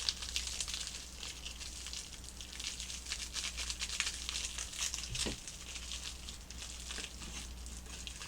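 A package of flavouring powder being crinkled and squeezed by hand to work out lumpy, caked powder, giving a steady run of small crackling crinkles.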